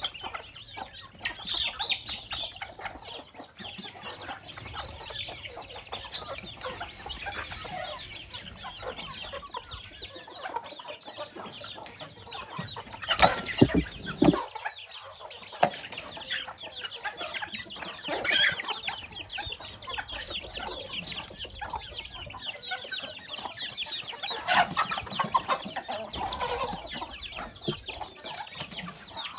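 A flock of hens and chicks foraging: hens clucking over a constant high peeping of chicks. About halfway through there is a brief, louder commotion.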